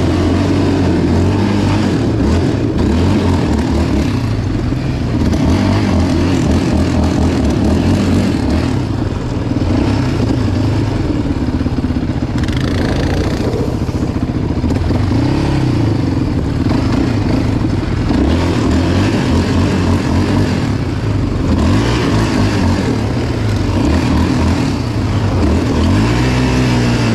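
Yamaha Raptor 700 ATV's single-cylinder four-stroke engine running on the move, its pitch rising and falling again and again as it is revved up and let off.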